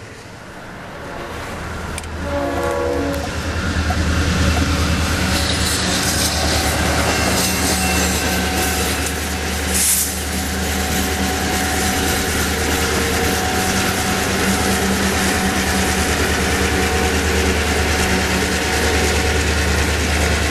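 South Shore Freight EMD GP38-2 diesel locomotives running steadily at close range, a low engine drone with wheels on rail. A short chord blast of the locomotive horn sounds about two seconds in.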